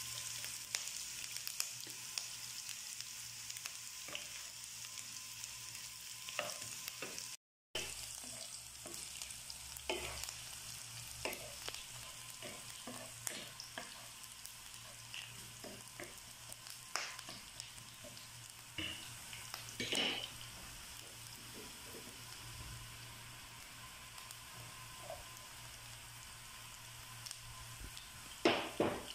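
Ginger strips sizzling in hot oil in a nonstick wok, being toasted so they give up more flavour, with chopped garlic joining them near the end. A wooden spatula stirs and scrapes them, making frequent small clicks and a few louder knocks near the end. The sound cuts out briefly about a third of the way in.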